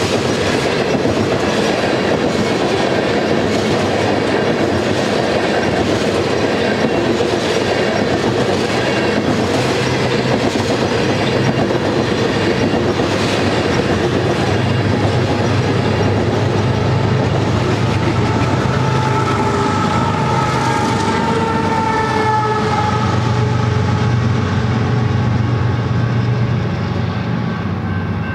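Loaded tank-car freight train rolling past, its steel wheels clicking over the rail joints in a steady clatter. A locomotive's engine hum comes in during the second half as the end of the train goes by, and the clatter eases off near the end.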